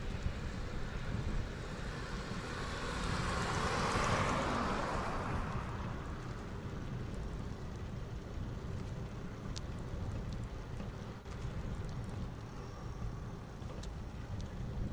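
Wind rumbling on the microphone of a camera on a moving bicycle, with a car passing on the road alongside about four seconds in, swelling and fading away. A few faint clicks later on.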